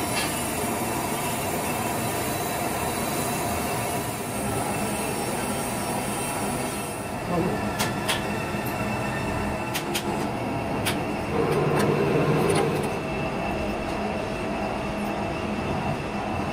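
Steady factory machinery noise with faint steady whining tones, broken by a few sharp clicks about halfway through.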